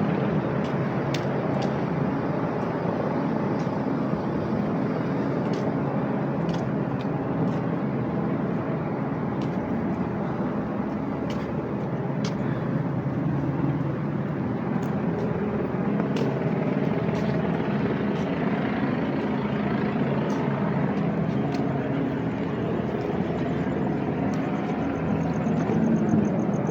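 Steady street noise of running vehicle engines and traffic, an even rumble with no break.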